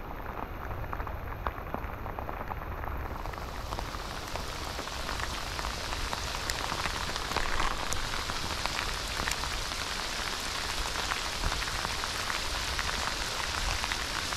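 Monsoon rain falling steadily, a dense hiss dotted with many small drop impacts; it grows fuller and slightly louder a few seconds in.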